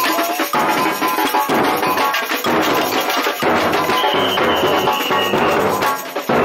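Street drum band playing marching snare and bass drums in a fast, steady rhythm. A high held tone sounds over the drumming for about a second and a half, starting about four seconds in.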